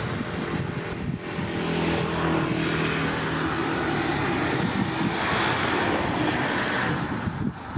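Airbus A320neo jet engines running loud as the airliner rolls out down the runway after a short landing. Steady engine tones sit under a rushing roar that swells about a second and a half in and drops off shortly before the end.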